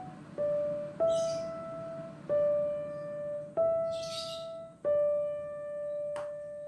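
Background music: sustained piano notes struck about once a second, with short hissing swishes about a second and four seconds in.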